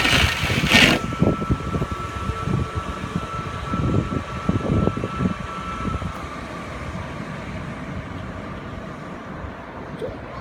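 Water jet hissing against the junction box during a waterproof spray test, cutting off about a second in. A steady whine carries on and slides down in pitch after about six seconds, with scattered low knocks.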